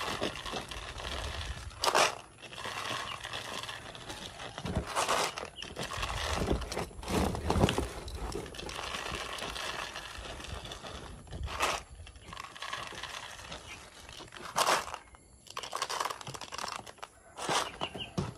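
Dry cat kibble being scooped by hand and poured into plastic bottles: a crinkling, rattling patter of pellets on plastic, with several louder rattles a few seconds apart.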